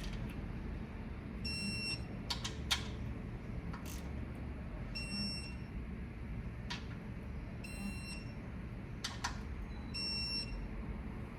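Four short electronic beeps a few seconds apart, among sharp clicks of hand tools on metal. The beeps are a digital torque wrench signalling that its 10 N·m setting has been reached on the timing-chain tensioner and guide bolts.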